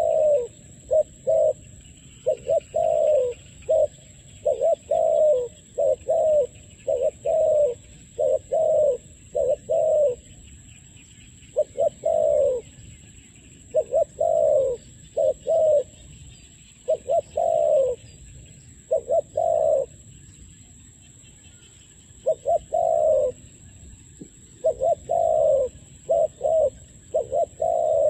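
Spotted doves cooing over and over: low, soft coos in short runs of a few notes, with brief pauses between the phrases.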